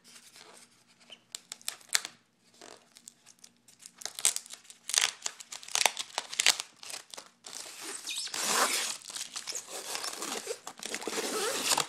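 Clear plastic packing tape being picked at with fingernails and then peeled off a styrofoam box: scattered scratches and clicks at first, turning from about halfway into a long stretch of crackling, tearing tape.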